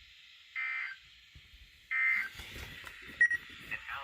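NOAA Weather Radio SAME end-of-message data bursts: short buzzy bursts of digital tones, two of them about a second apart, closing the weekly test broadcast from a weather radio receiver. A few sharp short electronic beeps and clicks follow near the end.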